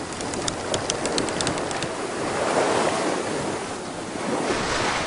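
Sea waves washing and surging, swelling from about two seconds in, with a run of light clicks over the first two seconds.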